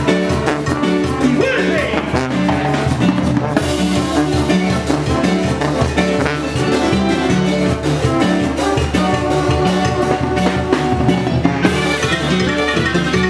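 Mexican banda brass band playing live and loud: a sousaphone carries the bouncing bass line under clarinets and the rest of the winds, with drums keeping a steady beat.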